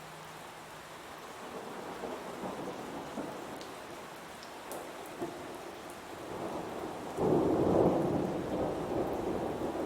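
Heavy rain falling steadily, with thunder rumbling and building, then a loud thunderclap about seven seconds in that rolls on and slowly fades.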